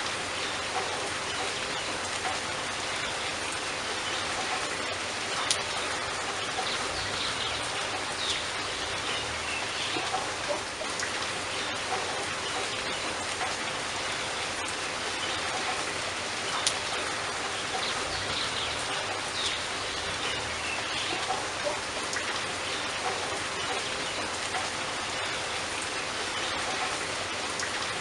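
Steady rainfall pattering on leaves, with single drops ticking sharply now and then.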